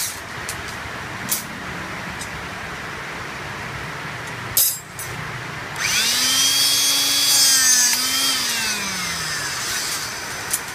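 A sharp click a little before halfway, then the motor of a handheld electric-hydraulic rebar cutter starts with a quickly rising whine and hiss. It runs about two seconds while driving the cutting ram through the rebar, then winds down with a falling pitch.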